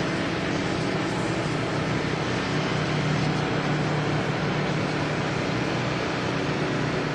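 Light aircraft's propeller engine running steadily, a constant low hum under an even hiss.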